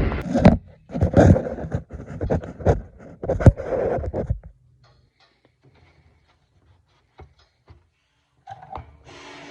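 Irregular clunks and scrapes for about four seconds, then near quiet with a few faint clicks and a low hum coming in near the end.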